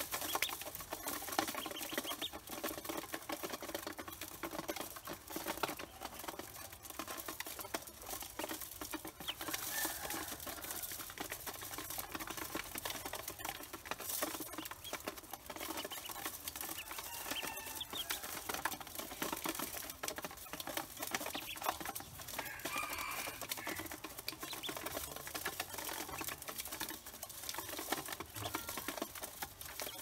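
A group of Pekin ducklings pecking feed from a metal bowl: a dense, rapid pattering of bills tapping on the metal, with occasional high peeps.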